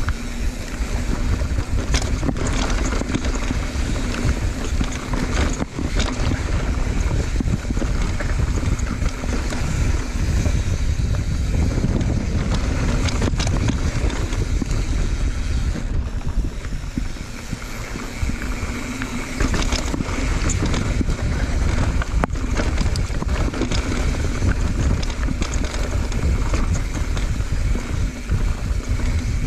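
Wind buffeting the microphone during a fast downhill mountain-bike ride, with a steady low rumble and scattered sharp knocks and rattles from bumps in the trail.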